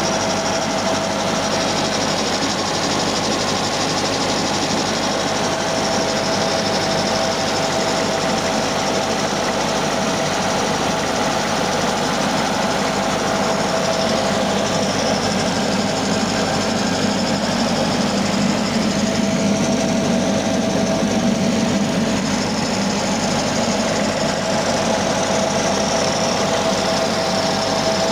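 Refrigerator compressor running loud and noisy, a steady mechanical rattle with a constant whining tone, the condition called 'racing'.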